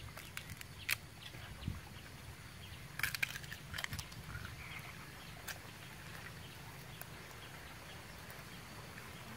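Sharp cracks and clicks of grilled crab shells being broken open by hand, a quick cluster of them about three seconds in, over a steady low outdoor background with a few faint animal calls.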